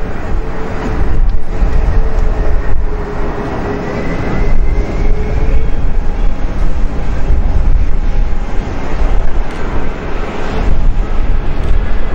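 Airbus A320-214 jet on final approach with its landing gear down, its CFM56 engines giving a steady roar with a faint whine that drifts slightly in pitch, over an uneven low rumble.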